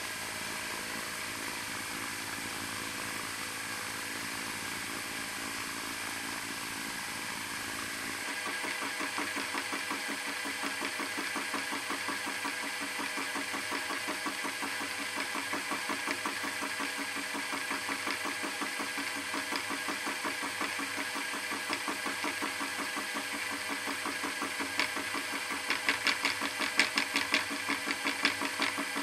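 Milling machine running with a fly cutter facing a rusty steel block. About a third of the way in a fast, even rhythm of the cut sets in, and it grows louder and sharper near the end.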